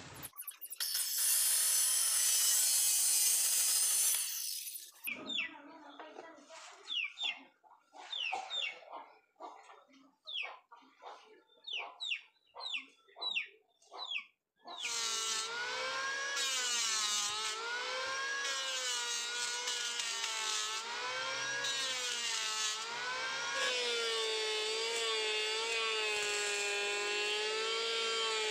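Hand-held electric planer running on a wooden plank, its motor whine wavering up and down in pitch as the blade takes the wood. Before it comes a few seconds of loud hiss, then a run of quick falling chirps.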